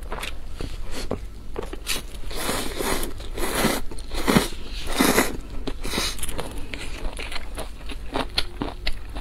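Close-miked eating of instant cup noodles: wet chewing and mouth clicks throughout, with two longer slurps of the noodles, one a couple of seconds in and another around five seconds in.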